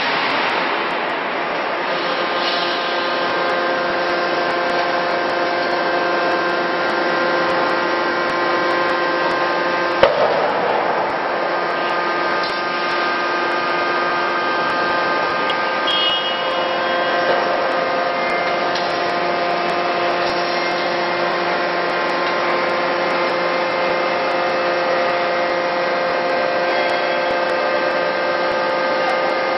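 Forge-shop running noise of a CNC hydraulic die forging hammer: a steady machine drone with several steady tones, and one sharp heavy blow about ten seconds in.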